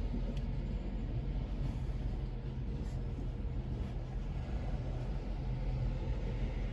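Loaded coal hopper cars of a freight train rolling slowly past, a steady low rumble heard through the windshield of a car.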